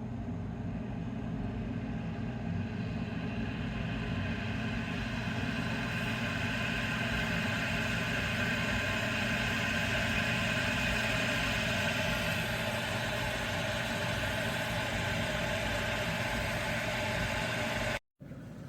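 Gooseneck electric kettle heating water: a steady rushing noise with a low hum, growing a little louder a few seconds in. It cuts out briefly near the end.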